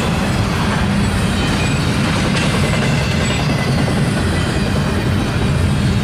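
Double-stack intermodal train's loaded well cars rolling past on the rails with a steady, low rumble of wheels on track.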